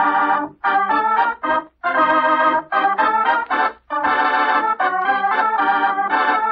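Organ music: a short theme of held chords that change every half-second or so, with brief breaks between phrases.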